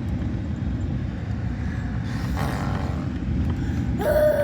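Car driving along: a steady low rumble of engine and road noise. A brief high-pitched sound cuts in near the end.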